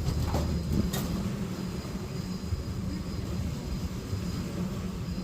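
Engine running with a steady low hum, with two or three sharp knocks in the first second.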